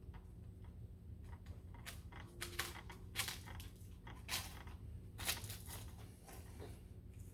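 Scattered clicks and taps of a computer keyboard and mouse, bunched in the middle few seconds, over a steady low hum.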